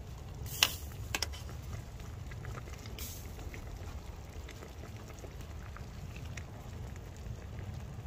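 A metal spoon stirring stew in a metal camping pot on a wood-burning stove, clinking against the pot: one sharp clink about half a second in and two quick ones just after a second, with lighter scrapes and ticks. A brief hiss sounds about three seconds in, over a low steady rumble.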